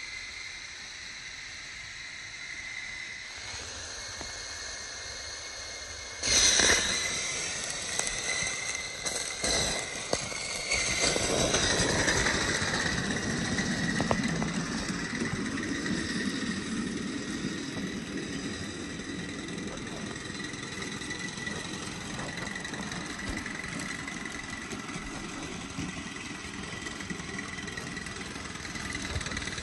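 Aster Hobby 'Lion' live-steam model locomotive running with its carriages on gauge 1 garden track: steam hissing steadily, with the rolling of the train on the rails. It gets suddenly louder about six seconds in and fuller again from about eleven seconds.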